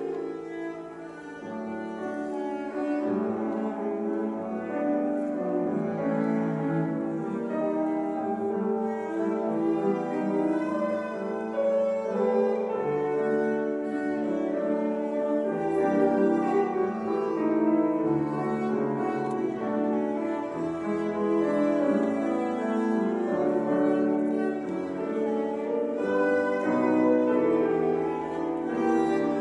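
Cello and grand piano playing a classical duet live, the cello's sustained bowed notes over the piano accompaniment, with the hall's reverberation.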